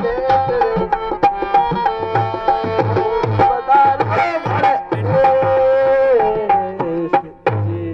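Live Rajasthani folk music: a hand drum beating a quick, steady rhythm under a sliding melody line and a steady held tone.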